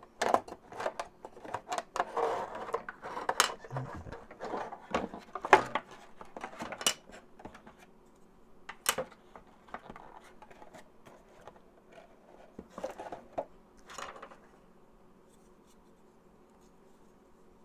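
Small plastic parts and packaging of a video doorbell kit being handled: a string of clicks, knocks and rustles that thin out about halfway through and stop a few seconds before the end.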